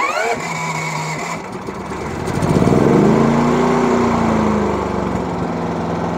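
DuroMax XP9000iH dual-fuel inverter generator's 459cc engine, just started on propane with its electric start button. It catches right away, speeds up about two and a half seconds in, then drops back and settles to a steady run.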